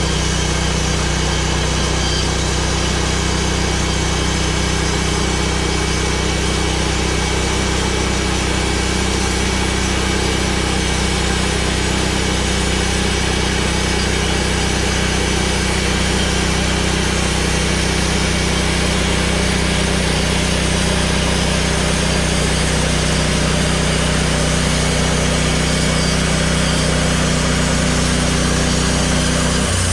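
Engine of a homebuilt bandsaw mill running steadily under load while the blade cuts lengthwise through a log.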